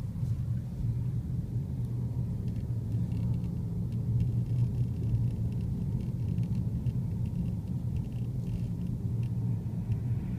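Volkswagen Passat CC running, with a steady low rumble and faint short squeaks coming and going over it: an intermittent creak whose cause the owner has not been able to find.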